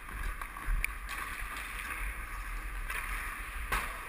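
Muffled rushing and scraping of skating on ice, heard through a GoPro's housing, with a sharp click near the end.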